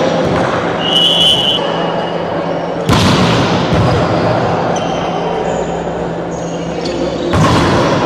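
Volleyball struck hard during a rally, twice: a sharp smack about three seconds in and another near the end, each followed by a long echo in the hall, over steady background noise.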